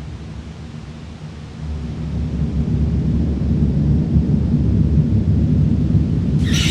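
Dark space ambience: a deep, low rumbling drone that swells louder from about a second and a half in. Just before the end a bright high layer of several stacked tones comes in suddenly over it.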